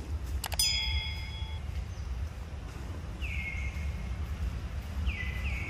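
A click and a short ringing chime from a subscribe-button overlay, then a bird calling three times, each call a short note sliding down and levelling off, over a steady low rumble.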